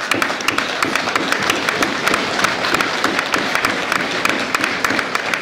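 Audience applauding: many hands clapping together in a dense, irregular patter.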